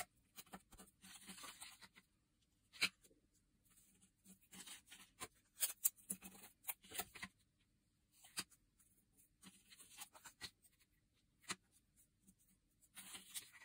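Pieces of paper plate being handled and pressed down onto card by hand: faint scattered taps and clicks with short bursts of paper rustling.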